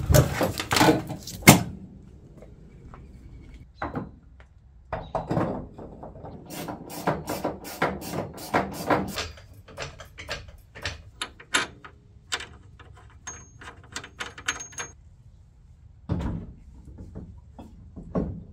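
Metal clinks, knocks and quick ticking as a road wheel is hung on a car's hub and its lug nuts are spun onto the studs by hand. A few heavy knocks come at the start, a fast run of clicks in the middle, and a duller thump near the end.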